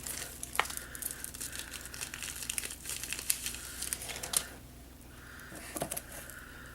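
Plastic wrap and bubble wrap crinkling and crackling as they are handled and pulled open: dense crackles for about four seconds, then quieter with only a few scattered ones.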